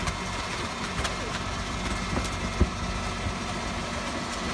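Rear-loader garbage truck's engine running steadily while the hydraulic packer blade cycles through the hopper compacting rubbish, with scattered metallic clanks and one sharp knock a little past halfway.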